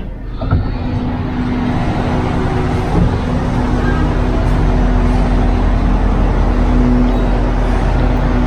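A sleeper carriage's push-button door opens with a click about half a second in. Then comes the steady drone of the parked diesel train's engines running, which grows louder over the first couple of seconds and holds a low tone.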